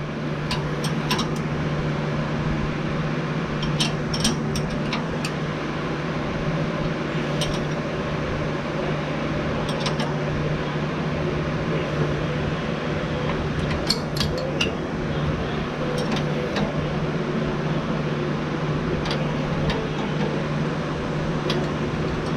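A steady low machine hum with scattered light metallic clinks, the sound of tools and fuel-system parts being handled under the truck.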